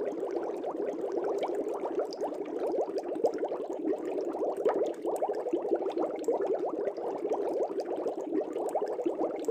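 Aquarium water bubbling steadily: a dense stream of small bubbles blipping in quick succession, without pause.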